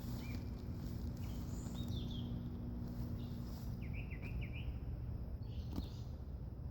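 Small woodland birds chirping in short phrases several times, over a steady low outdoor background noise, with a single click near the end.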